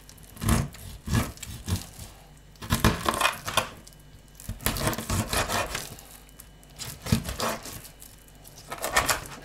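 Kitchen knife chopping and sawing a whole carp into portion pieces: short bursts of sharp knocks and crunching cuts every second or so, with pauses between them.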